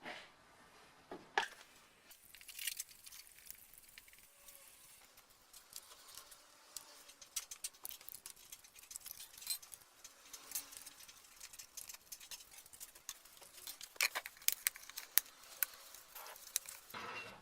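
Small metal parts clicking and rattling as they are handled, in irregular light ticks, with a louder run of clicks near the end.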